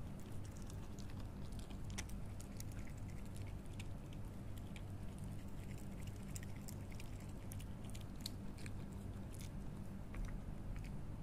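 A wild canid chewing pasta: irregular sharp clicks and smacks of eating, over a steady low hum.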